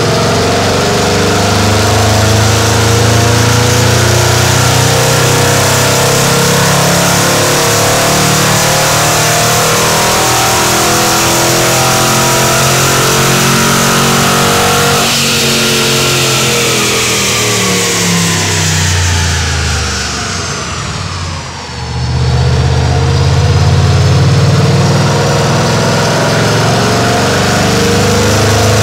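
Mercedes C63 AMG (W204) 6.2-litre V8 running hard on a chassis dyno through a Capristo stainless sport exhaust, its revs held high and steady. From about halfway the revs fall away over several seconds, dip briefly, then climb again and hold.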